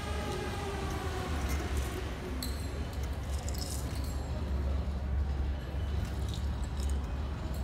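A held musical note fading out in the first second, then a quiet pause broken by light metallic jingles a few times, as of costume coins or finger cymbals, over a steady low hum.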